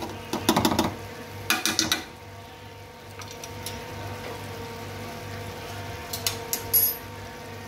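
Four short bursts of clinking and scraping from a utensil against a cooking pot of rice, over a steady low hum.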